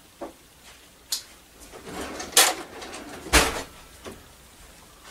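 Knocks and clicks of things being handled in a kitchen: a couple of light clicks, then two sharp knocks about a second apart, the second with a low thump.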